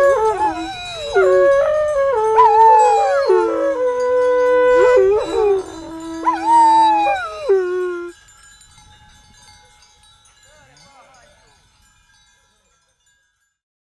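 Trâmbiță, a long Romanian shepherd's horn, playing a melody of held notes with jumps and slides between them. The playing stops about eight seconds in and the sound trails off faintly over the next few seconds.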